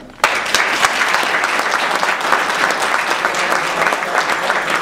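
Audience applauding, starting suddenly just after the start and going on steadily as many hands clap at once.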